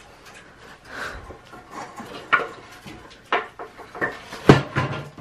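An old wooden plank being pulled away from a brick and stone wall: wood scraping and creaking, broken by several sharp knocks about a second apart, the loudest near the end.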